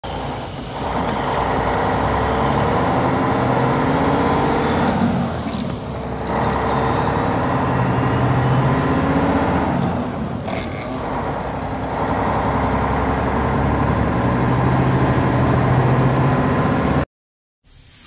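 Heavy diesel truck engine running, the sound of a concrete mixer truck, with slow rises and falls in pitch and two brief dips in level; it cuts off abruptly about a second before the end.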